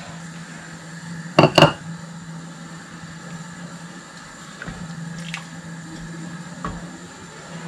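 Wooden spoon stirring thick, cornflour-thickened chicken corn soup in a pot, wet squishing and slopping, over a steady low hum. Two sharp knocks about a second and a half in are the loudest sounds.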